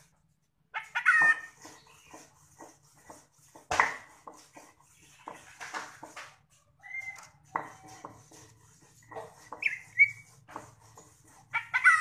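Caged cucak ijo (green leafbird) in full song: an irregular run of sharp chips and short whistled notes with brief pauses between them.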